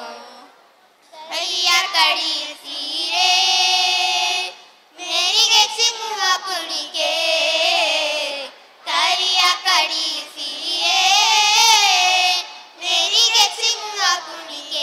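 A group of children singing a Kannada folk song (janapada geethe) in Kannada, without instruments. It comes in phrases of a few seconds, with short breaks between them.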